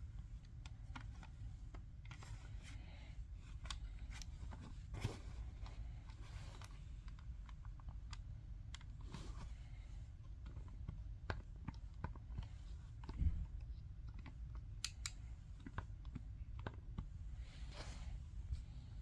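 Irregular small plastic clicks and taps, like the buttons of an Emerson 1F85U22PR programmable thermostat being pressed, over a low steady hum. The strongest tap comes about two-thirds of the way through.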